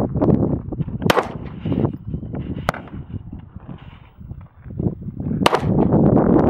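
A Springfield Armory XD-S 9mm pistol fired three separate times at a steel target: sharp reports about a second in, near the middle, and about two-thirds of the way through.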